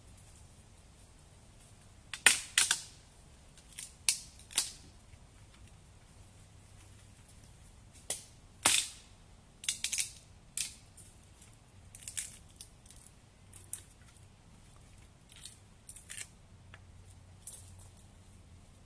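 Dry sticks snapping and crackling as deadwood is broken and gathered in the brush: irregular sharp cracks, the loudest about two seconds in and again near the middle.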